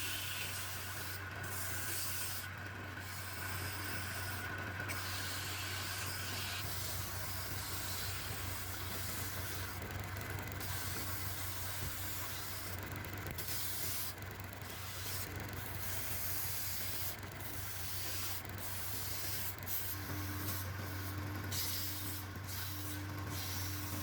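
A power tool's motor running with a steady hum, while wood is worked with a rough hiss that comes and goes in short strokes, like sanding or cutting.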